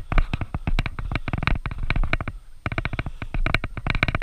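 Footsteps and clothing rustle of someone walking over grass and dirt, with a body-worn camera jostling: a dense run of irregular thumps and crackles that pauses briefly about two and a half seconds in.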